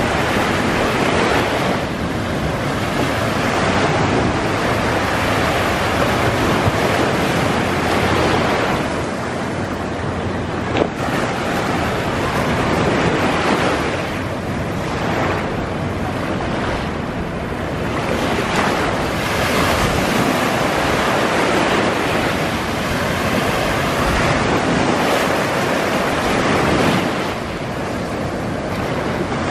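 Shallow surf washing onto a sandy beach, swelling and easing every few seconds, with wind rumbling on the microphone.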